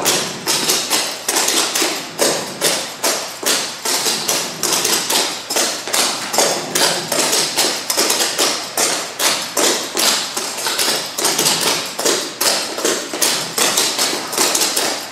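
Clogging shoe taps striking a hard floor in quick, steady footwork, several taps a second: a dancer repeating the clogging 'fancy double' step (double step, rock step, rock step).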